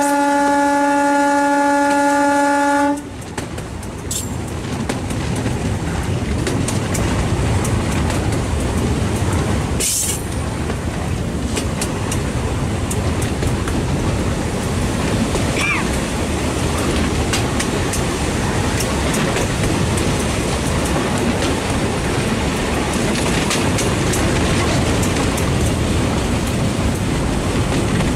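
A diesel locomotive's horn blows one long steady note and cuts off about three seconds in. After that, the train runs along the track in a steady rumble with faint wheel clicks.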